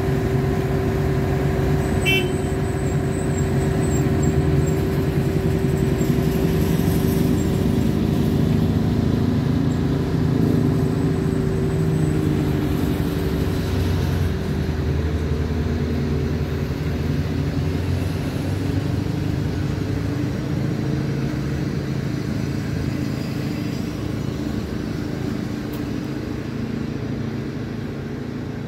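PKP Intercity SU42 diesel locomotive pulling a passenger train away from the platform: its diesel engine runs under load with a steady drone and whine, which fades about halfway through as the coaches roll past on the rails and the train draws away.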